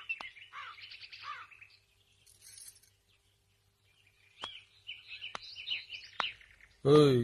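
Small birds chirping and twittering, with a few sharp clicks among the calls and a quiet gap of about two seconds in the middle. A short loud sound cuts in at the very end.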